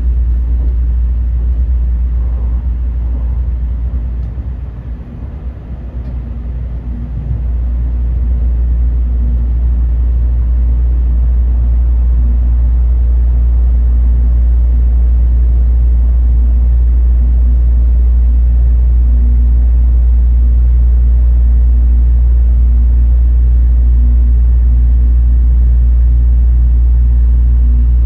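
Low, steady rumble inside a Tokaido Shinkansen passenger car. It dips briefly about five seconds in, then holds level.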